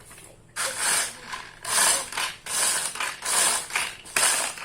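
Food chopper crushing Oreo biscuits in five short pulses, about one a second, with a rattling, ratchet-like whirr.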